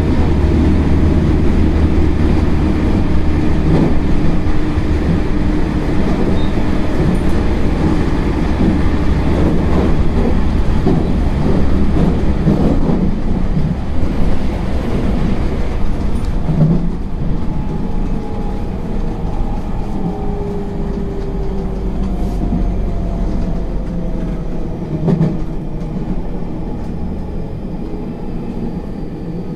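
JR Central 313 series electric train running, heard from inside the car: a steady rumble of wheels on rail with a few clacks. From about halfway, the motor whine falls in pitch and the rumble eases as the train slows down.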